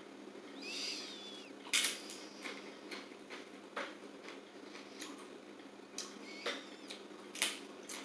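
A sniff about a second in, then a person biting and chewing a crunchy Simply Nature veggie and flaxseed tortilla chip (a spinach one), with sharp separate crunches every second or so.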